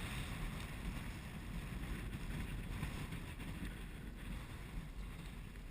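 Wind blowing across the microphone: a steady low rushing noise with no distinct events.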